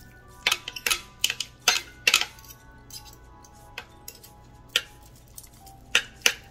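Two metal forks clicking and scraping against a slow cooker's glazed crock as cooked chicken is shredded: irregular sharp clicks, a quick run of them in the first two seconds, then sparser strokes, with a couple more near the end.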